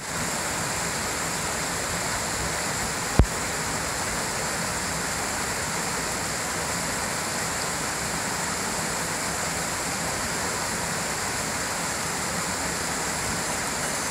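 Mountain stream running over rocks and small cascades: a steady rush of flowing water. One short thump about three seconds in.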